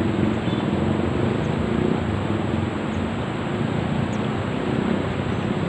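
An engine running steadily under a constant rush of wind and water noise.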